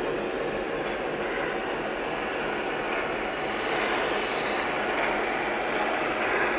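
Model locomotives' onboard sound systems playing idling sounds in the yard: a steady, even hiss.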